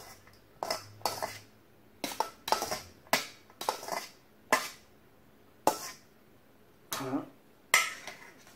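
Metal clinks and scrapes against a stainless steel colander as cooked lardons are scooped out of it onto a bowl of pasta: about a dozen short, irregular knocks.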